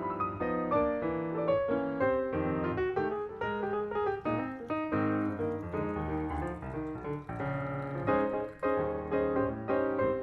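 Background piano music, a continuous run of single notes and chords.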